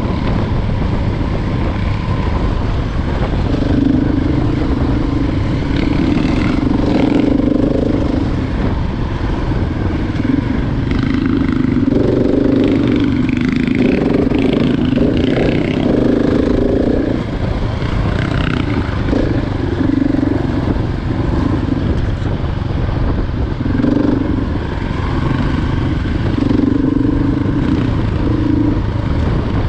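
Single-cylinder four-stroke enduro motorcycle riding a gravel trail, its engine note rising and falling with the throttle over a steady low rumble.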